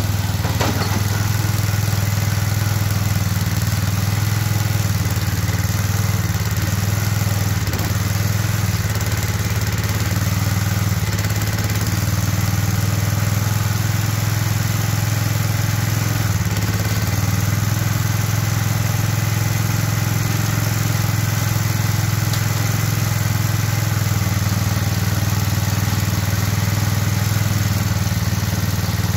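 Engine running steadily at a constant speed, with a brief click about half a second in.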